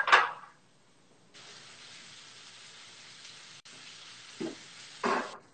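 Chicken searing in a hot frying pan: a steady sizzle that starts about a second and a half in and briefly cuts out once. A loud short sound opens the stretch, and two shorter ones come near the end.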